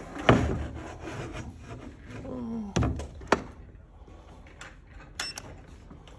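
Handling knocks and clicks as a handheld inkjet printer is set onto a metal guide rail against a wooden crate: a loud knock just after the start, a short falling squeak, two sharp clicks about half a second apart, then a few lighter clicks near the end.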